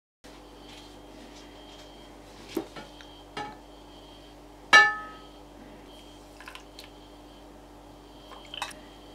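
Glassware being handled on a ceramic plate: a few light knocks and clinks, the loudest about halfway through a bright glass clink that rings briefly, with a cluster of small clinks near the end, over a steady low hum.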